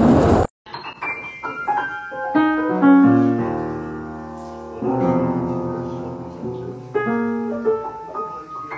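A cat walking across the keys of a grand piano, sounding scattered single notes and dense clusters that ring on, the clusters thickest in the middle. It comes after a short loud burst of noise at the very start.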